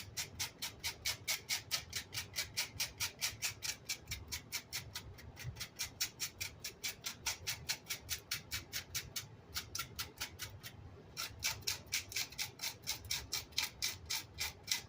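Rapid back-and-forth scrubbing strokes on a Vox AC30's grille cloth, about five a second with a short break about nine and a half seconds in, working trapped wood chips and glue out of the mesh.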